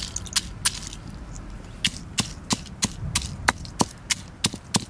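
Wooden pestle pounding dried red chillies in a stone mortar: a run of sharp knocks about three a second, with a short pause about a second in, as the chillies are crushed to pieces.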